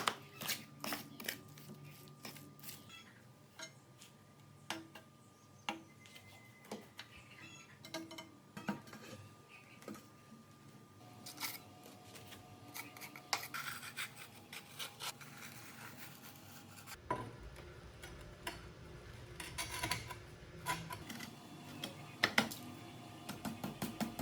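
Irregular light clinks, taps and scraping, the sound of hand tools and metal parts being handled and worked, with a few sharper knocks.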